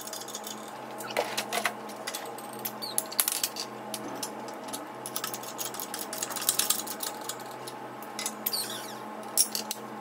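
Hand-pumped hydraulic bottle jack on a shop press working, its steel pump handle and press fittings giving irregular metallic clicks and clinks while a new upper ball joint is pressed into a VW Beetle front control arm.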